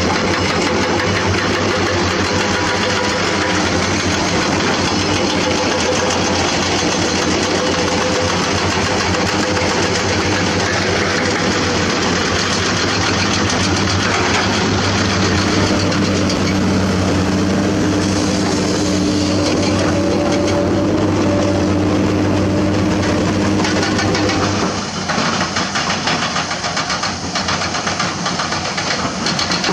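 Komatsu PC200 hydraulic excavator's diesel engine running steadily under working load, its note shifting up and down as the hydraulics work the arm and bucket. About 25 s in, the sound drops slightly and becomes choppier.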